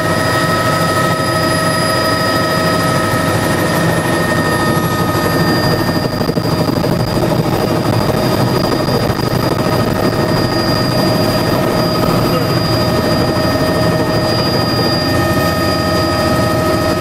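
Helicopter engine and rotor running steadily, heard from inside the cabin, with several steady high whine tones over a dense, even noise.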